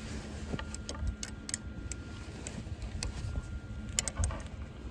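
Irregular light clicks and ticks of a turnbuckle being turned to tension the brace wire on a gate post, with a cluster of clicks about four seconds in, over a low rumble.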